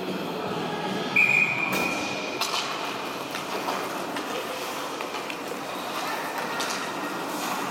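Indoor rink sound of youth ice hockey play: skates scraping on the ice and a few sharp clacks of sticks and puck, with a brief high-pitched tone about a second in.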